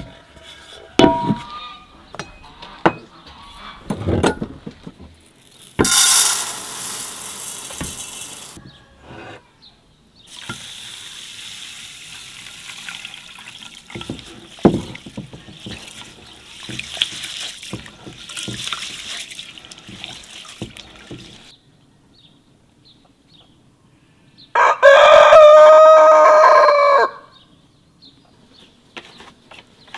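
Scattered knocks and taps on a wooden board, a loud rush of noise, then a long dry rustle of a hand stirring uncooked rice in an enamel bowl. Near the end, a rooster crows once, loudly, for about two and a half seconds.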